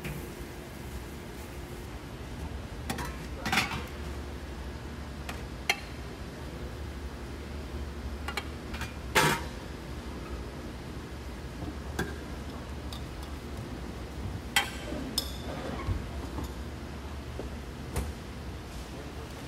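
Scattered metal clanks and clinks of a steel ladle against a steel wok and bowls, the loudest about nine seconds in, over a steady low hum.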